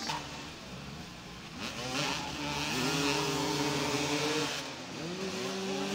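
Several motoball motorcycles running on the pitch, one engine revving up about two seconds in, holding a steady high pitch, then revving up again near the end.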